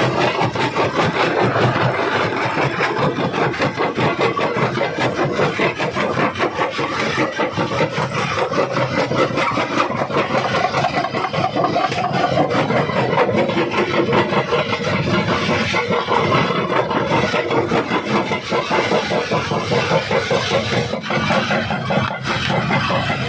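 Jaw rock crusher running and crushing stone: a steady machine drone under dense, rapid cracking and knocking of rock breaking between the jaws.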